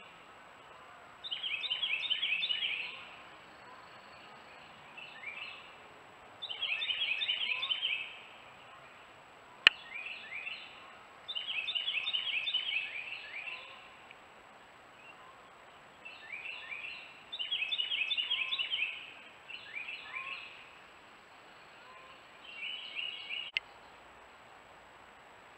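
A bird calling in repeated bursts of rapid, high, falling notes, each burst about a second and a half long, coming back every five seconds or so with softer snatches in between. There is a sharp click about ten seconds in and another near the end, after which the calling stops.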